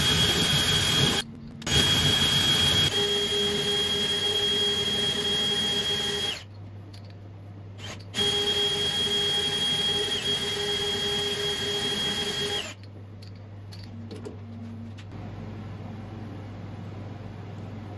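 Cordless drill mounted on a lathe as a milling attachment, running with a steady high whine while drilling into an aluminium part, in three runs with short pauses between them. About two-thirds of the way through it stops, leaving only a quieter low steady hum.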